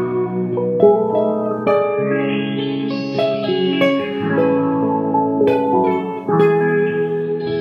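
Solo electric guitar played on its own, with picked single notes and chord arpeggios that ring over one another.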